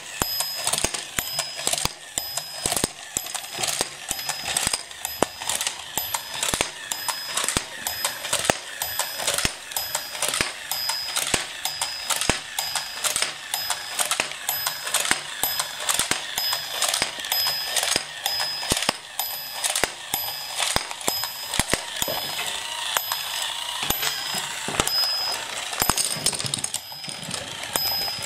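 Battery-powered domino-laying toy train running: its motor and gears whir and ratchet as it sets plastic dominoes down one by one, each landing with a sharp click. A short high electronic beep repeats at an even pace throughout.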